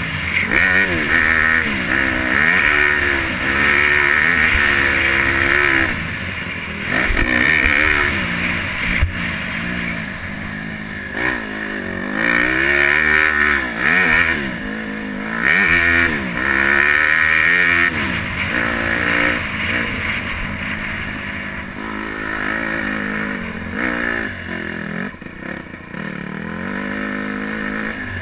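Honda CRF150R single-cylinder four-stroke dirt bike engine revving up and falling off again every second or two as the rider works the throttle through the track, with wind buffeting the microphone.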